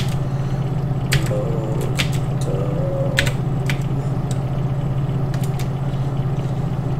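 Computer keyboard keystrokes: about five scattered key clicks in the first four seconds as a word is typed, over a steady low hum.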